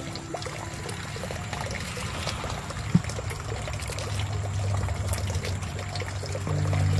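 Water trickling and pouring steadily, under soft background music with steady low notes; a single sharp click about three seconds in.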